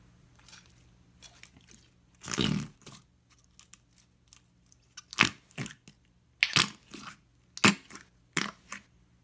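Glossy red slime being handled and pressed into a glass jar by hand, with wet, sticky squelching. One longer squelch comes about two seconds in, then a run of short sharp pops and clicks from about the middle on.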